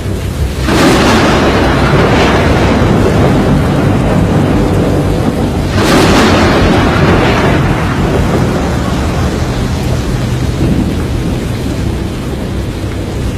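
Thunderstorm: steady heavy rain with two sudden loud thunder crashes, about a second in and about six seconds in, each rumbling away over a couple of seconds.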